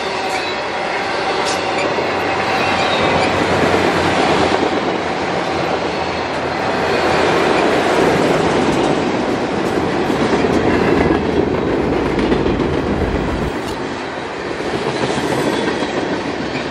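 Freight train cars rolling past: autoracks, a tank car and boxcars of a mixed manifest train, the steady rumble and clatter of steel wheels on the rails. The rear of the train goes by near the end.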